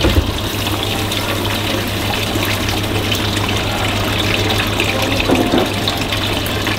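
Water running in a steady rush as tea is made, with a low steady hum underneath and a brief knock right at the start.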